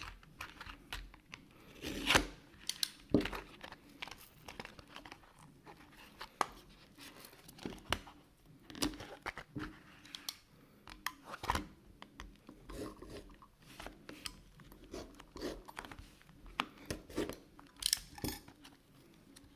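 A padlock's retail packaging being cut and torn open by hand: irregular snips, tearing and crinkling with scattered clicks and knocks, the loudest about two seconds in.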